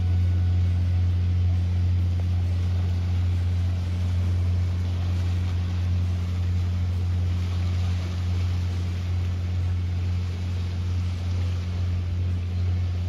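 A steady low engine drone at one unchanging pitch, with a faint wash of small waves on the shore behind it.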